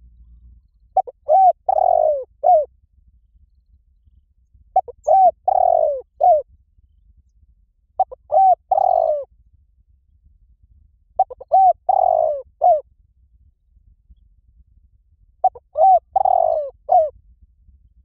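Spotted dove cooing: five phrases of the same pattern, about three and a half seconds apart. Each phrase is a couple of quick short coos, a longer falling coo, then one more short coo.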